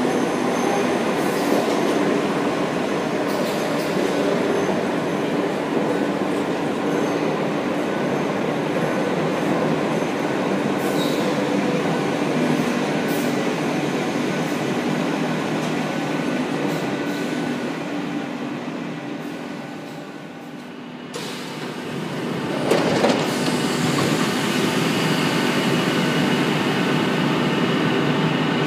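Madrid Metro train running alongside an underground platform: a steady rumble of wheels and motors with a few steady tones and a light wheel squeal. The noise fades and breaks off about two-thirds of the way through, then builds up again with a single knock.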